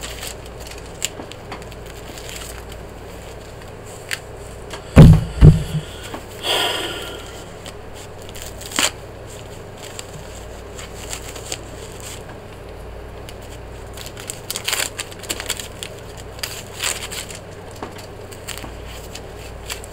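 Handling noise of disposable absorbent pads being unwrapped and stuck on: crinkling plastic wrapper and peeling adhesive backing, with scattered small clicks. Two loud thumps about five seconds in.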